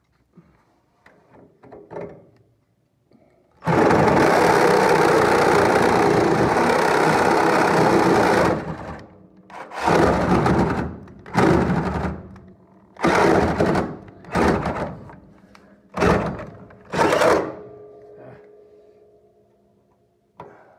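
Electric power tool cutting metal: one long run of about five seconds, then six short bursts about a second and a half apart, with the motor winding down after the last. A few light knocks of handling come before it.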